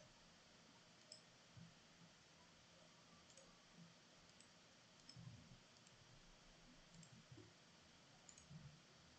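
Near silence with a handful of faint, irregular computer mouse clicks, the clicks of placing lines and finishing a sketch in a drawing program, and a few soft low thuds.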